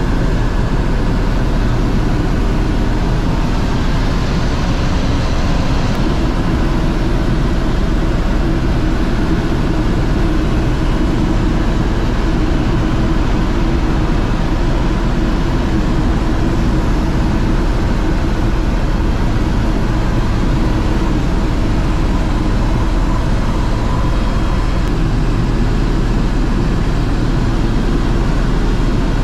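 Airbus H130 single-engine turbine helicopter in flight, heard from inside the cabin: a loud, steady drone of rotor and engine with a few steady whining tones over it.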